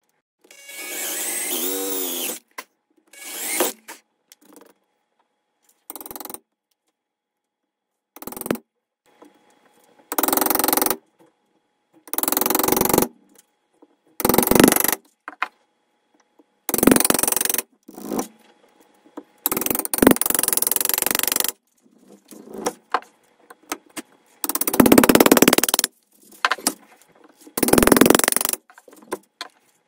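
Bench chisel cutting a small mortise in softwood by hand: a dozen or so separate scraping cuts into the wood fibres, each up to about two seconds long, with silence between them.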